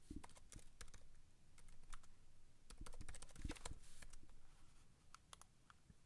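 Typing on a computer keyboard: faint, uneven runs of key clicks as a username and password are entered.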